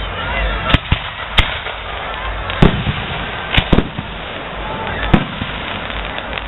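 Aerial firework shells bursting in a display: about six sharp bangs at uneven intervals, two of them close together near the middle, over a steady wash of noise.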